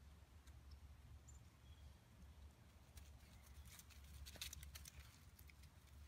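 Near silence with a faint low rumble, broken about halfway through by a short run of faint crackling, rustling clicks.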